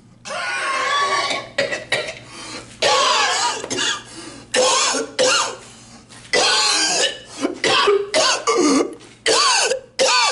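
A man coughing over and over, a long run of hacking, staged coughs and throat-clearing, some with a voiced groan.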